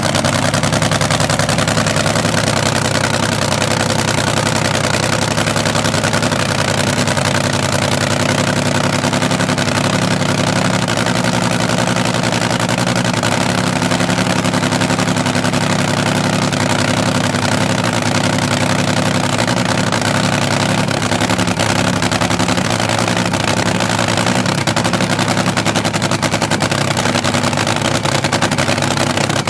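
Nitro-burning supercharged engine of an AA/FA fuel altered dragster cackling at a steady idle, a loud, rapid, rough run of firing pulses.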